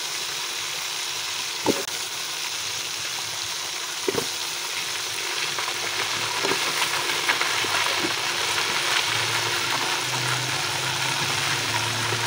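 Raw chicken pieces sizzling in hot oil and garlic in a pot, a steady frying hiss that grows a little louder halfway through. There are two light knocks, about two seconds in and about four seconds in.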